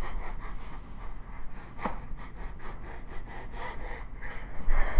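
Rubbing and scuffing handling noise on a handheld camera's microphone as it is jostled, a quick run of short scrapes at about four a second.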